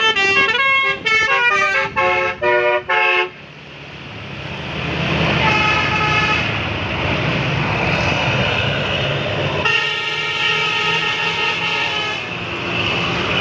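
Bus telolet basuri musical horn playing a quick run of short stepped notes for about three seconds. It then stops, and steady engine and road noise swells up and stays loud.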